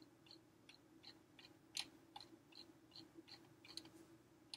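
Faint, quick clicks, about two or three a second, from a computer mouse's scroll wheel turning notch by notch as a list is scrolled, over a low steady hum.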